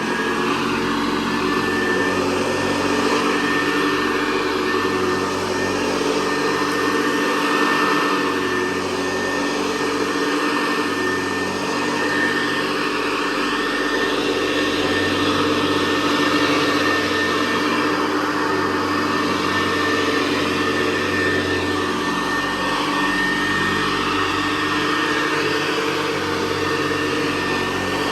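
Hoover Convertible Model 68 direct-air upright vacuum cleaner running steadily, a motor-fan whine over a broad rush of air.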